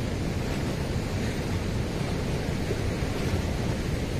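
Steady rushing noise of wind buffeting the microphone, over the rush of a fast-flowing, swollen river.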